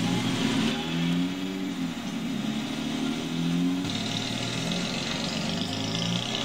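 1962 Austin-Healey 3000 Mark II's 3-litre inline six engine pulling away and driving, its pitch climbing and dropping back several times.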